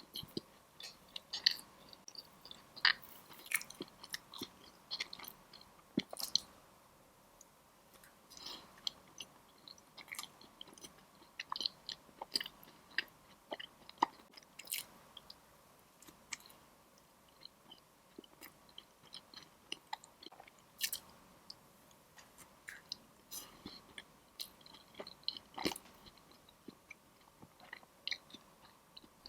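Close-miked eating of crisp Chinese pastries: irregular sharp crunching bites, with quieter chewing in between.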